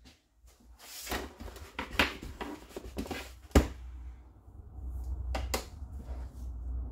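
Stamping supplies handled and set down on a tabletop: a string of light knocks and clicks, the sharpest a little over three and a half seconds in, then two quick clicks about five seconds in over a low rumble.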